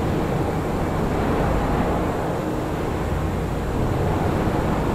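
General Motors factory floor at medium activity: a steady rumble of machinery and general working noise.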